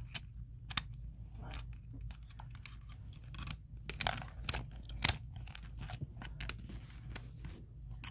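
Irregular light clicks, taps and rustles of small toys being handled close to the microphone, with a couple of sharper clicks about four and five seconds in, over a low steady hum.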